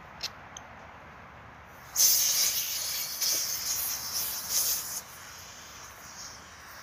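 Compressed CO2 hissing out of a small CO2 cartridge twisted in its fitting, a loud hiss lasting about three seconds that cuts off suddenly. Two light clicks from handling the cartridge come first.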